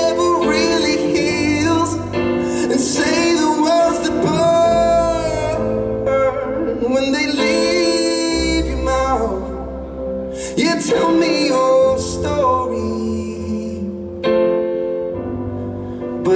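Live pop music: a man singing into a microphone over piano chords, with a low bass underneath, in sung phrases with short breaks between them.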